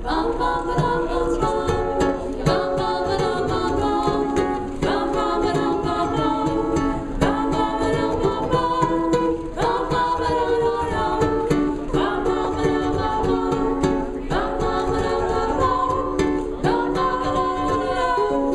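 Music: a song played on a strummed string instrument, likely a ukulele, keeping a steady beat with a strong downbeat strum about every two and a half seconds.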